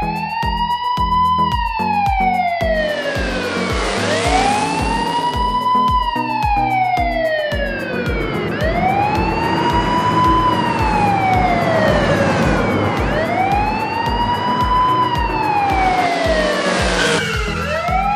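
Police siren wailing, each wail rising quickly and then falling slowly, repeating about every four and a half seconds. Background music with a steady beat plays underneath.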